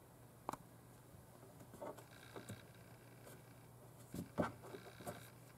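Faint scattered clicks and taps of handling close to the microphone, over a low steady hum. The loudest tap comes a little past the middle.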